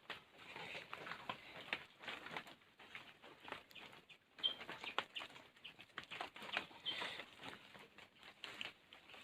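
Rain dripping and pattering in irregular small taps, with a couple of short bird chirps about four and a half and seven seconds in.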